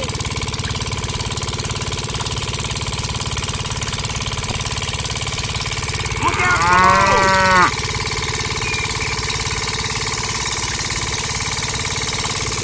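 A small engine runs steadily with a fast, even chugging. About six seconds in, a cow moos once for about a second and a half over it.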